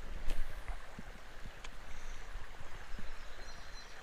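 Creek water running steadily, with a few sharp clicks and knocks from close handling of fishing tackle.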